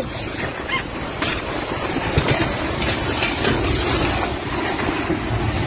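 Strong typhoon wind blowing, a continuous dense rush of noise.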